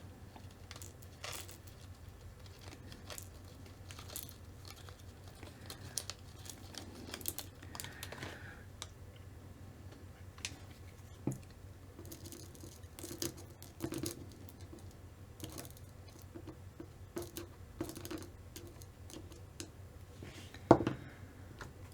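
Faint small clicks, taps and light rustling from hands working on a small RC ball differential, as the tiny diff balls are set one by one into the holes of the diff gear. One sharper knock comes shortly before the end.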